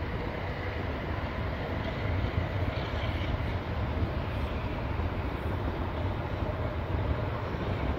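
Jet engines of a Boeing 737-800 at takeoff power as it climbs away, heard as a steady, distant rumbling roar.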